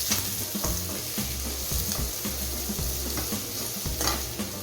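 White onion sizzling as it fries in a pan with less than a tablespoon of oil. Stirring strokes scrape against the pan a few times, the clearest just after the start and near the end.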